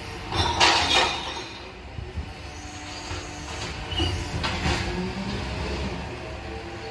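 Side-loader garbage truck's diesel engine running as it works along the street, with two short bursts of hissing noise, about half a second in and again around four and a half seconds.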